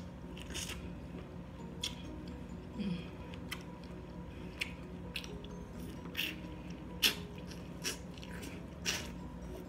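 Biting and chewing corn on the cob coated in sauce: short sharp clicks and crunches about once a second, over a steady low hum.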